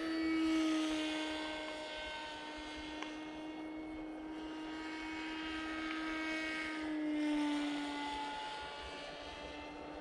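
Brushless electric motor (Brotherhobby Avenger 2808, 1500 kV) and 8-inch two-blade propeller of a 3D-printed Grom FPV plane buzzing steadily in flight. The sound swells as the plane passes closer about half a second in and again around seven seconds, and the pitch drops slightly as it goes by the second time.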